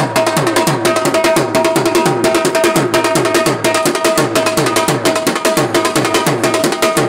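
Dhol drum beaten with sticks in a fast, steady rhythm: deep bass-head strokes that drop in pitch, about three a second, under rapid sharp strokes on the ringing treble head. It is the sehri drumming that wakes people for the pre-dawn meal in Ramadan.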